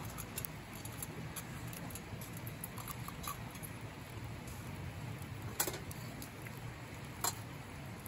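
Light clicks and taps of metal tongs against an aluminium mess tin and grill as food is lifted onto rice, with two sharper metallic clicks, one about halfway through and one near the end.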